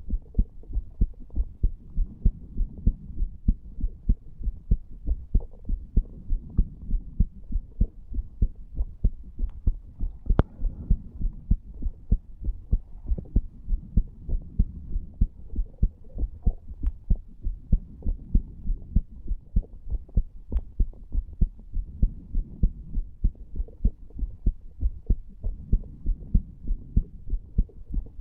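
A human heartbeat heard through the chest wall over the tricuspid valve area: low, muffled heart sounds thumping in a steady, even rhythm of about three thumps a second, with a few faint ticks.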